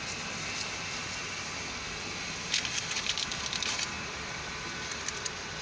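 Freight train of covered hopper cars rolling across a grade crossing, heard from inside a stopped car: a steady rolling noise, with a quick run of clattering wheel clicks about two and a half seconds in that lasts a little over a second.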